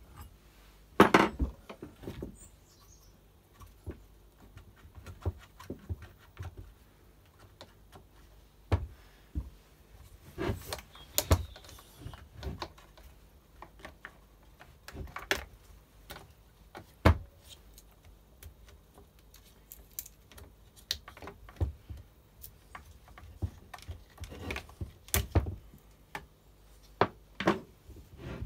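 Scattered clicks, taps and knocks of hand tools and the plastic and metal parts of a Makita top-handle chainsaw being handled as it is dismantled to remove the handle mount. The knocks come irregularly, a few sharper ones standing out, the loudest about a second in.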